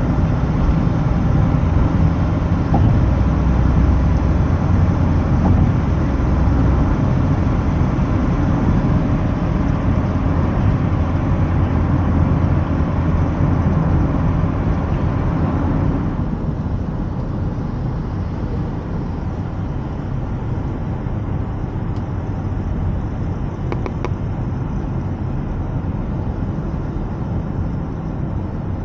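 Steady road and engine noise of a moving car heard from inside the cabin. About halfway through it drops abruptly to a quieter, duller hum.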